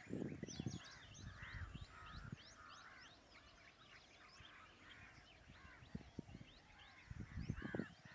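Birds chirping and calling, many short rising chirps with some harsher caw-like calls. Bursts of low rumbling noise come and go, strongest at the start and again near the end.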